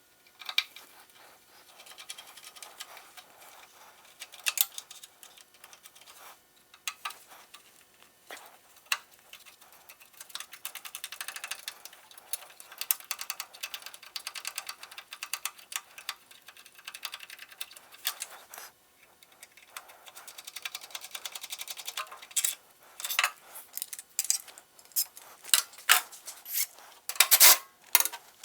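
Hand tools and metal parts being handled on a small bulldozer's drivetrain: scattered metallic clinks, rattles and rubbing. The clinks get louder and come more often in the last few seconds.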